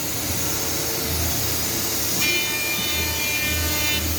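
Morbidelli Author 600 CNC machining center running: a steady hiss of machinery with low pulsing, and a high whine of several steady tones coming in a little over halfway through.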